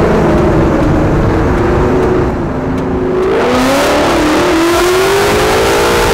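Lexus LC 500's 5.0-litre V8 with aftermarket headers, heard from outside the moving car with wind on the microphone. It runs at a steady note, eases off briefly a little over two seconds in, then accelerates with its pitch climbing steadily.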